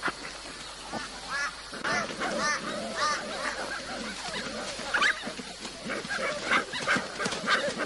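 Dingo pups yelping and squealing: many short, overlapping calls, each rising and falling in pitch.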